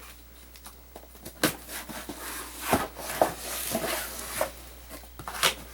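A cardboard subscription box being opened and its contents handled: several sharp knocks and clicks with rustling noise between them.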